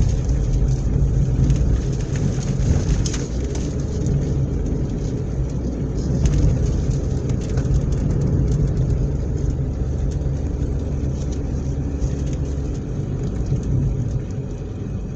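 Car driving, heard from inside the cabin: a steady low rumble of engine and road noise with scattered light ticks.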